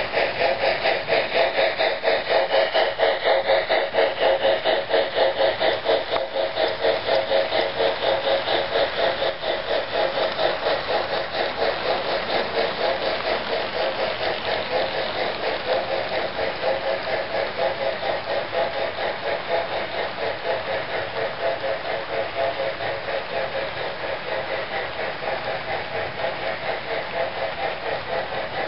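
HO scale DCC model steam locomotive running, its sound decoder chuffing in a fast, even rhythm over the rumble of model wheels on the track. The sound eases slightly toward the end.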